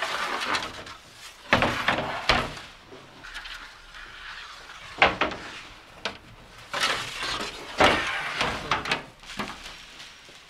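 Metal baking trays dragged out across the oven floor with pliers: stretches of scraping broken by several sharp clanks of metal.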